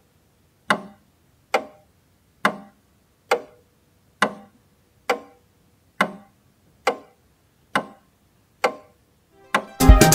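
Clock ticking, one sharp tick a little under every second, each with a short ring, about eleven in all. Loud music with drums cuts in just before the end.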